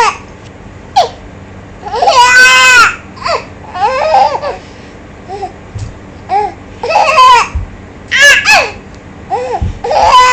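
Baby babbling and laughing in a string of short high-pitched vocal bursts, the longest about a second long about two seconds in.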